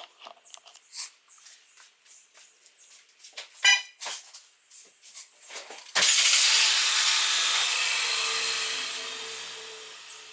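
A car engine starting with a sudden loud flare about six seconds in, then settling and fading over the next few seconds. Before it come small clicks and knocks and a short chirp.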